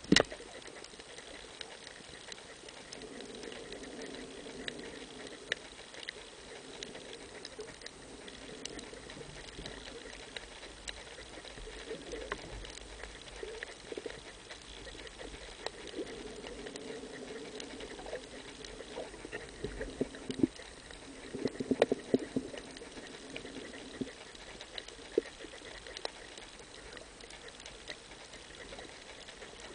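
Underwater ambience picked up through a compact camera's housing: a low hiss scattered with sharp clicks and crackles, and a cluster of louder knocks about 21 to 23 seconds in.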